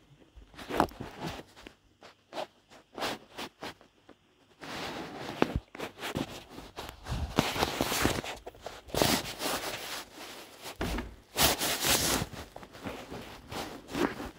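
Irregular footsteps with scraping and rustling, in short uneven bursts that grow busier about a third of the way in.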